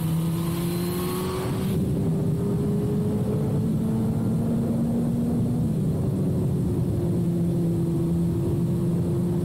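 2006 Suzuki GSX-R1000's inline-four engine through a full carbon/titanium Yoshimura exhaust, running under way at a steady pull with its pitch slowly rising, then dropping a little about halfway through and holding steady.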